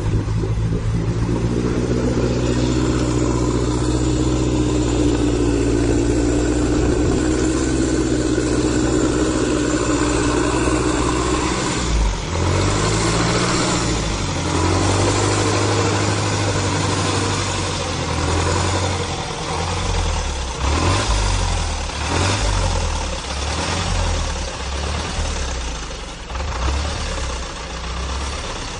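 Hummer truck's engine running while the truck fords a river almost fully submerged, breathing and exhausting through a raised snorkel pipe. The engine holds a steady pitch at first, then from about twelve seconds in its revs rise and fall repeatedly under load.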